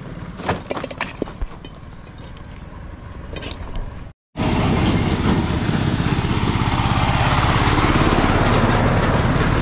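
A few light clicks, then after a brief cut a power tiller's single-cylinder diesel engine running loudly and steadily.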